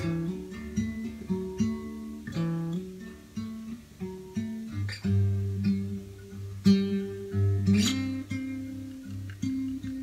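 1979 Sigma DM18 dreadnought acoustic guitar with a solid spruce top, fingerpicked: melody notes over a bass line, with two louder accented chords in the second half.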